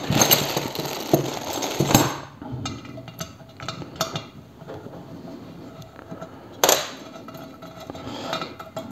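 Light metallic clinks and knocks from parts being handled on a drill press's cast base. There is a busier clatter in the first two seconds, scattered clicks after it, and one sharper clink about two-thirds of the way through.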